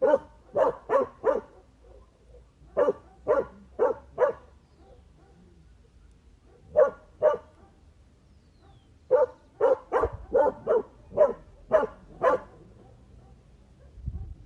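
A dog barking in short bursts: groups of two to four barks with pauses between, then a longer run of about eight barks near the end.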